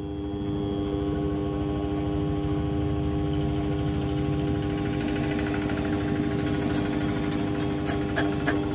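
Small benchtop metal lathe running steadily, its motor giving a steady hum while a tool bit turns the inside of a motorcycle clutch drum. The cutting noise grows from about halfway, and regular sharp ticks come in near the end.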